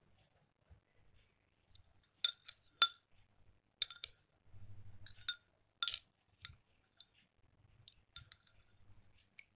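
A spoon clinking against a stemmed glass of milky drink as it is stirred: a string of light, ringing clinks at irregular intervals, starting about two seconds in.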